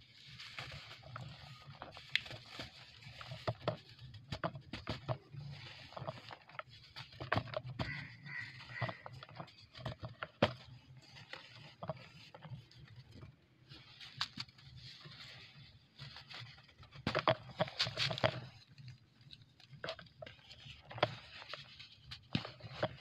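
Hands crushing and breaking a dry cast block of pure cement: irregular gritty crunching and crackling, with powder and small lumps pattering into the basin. The crackling is densest about three quarters of the way through.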